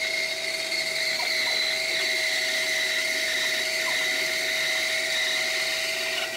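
Benchtop bandsaw running and cutting through a laminated wood block: a steady whine with the hiss of the blade in the wood.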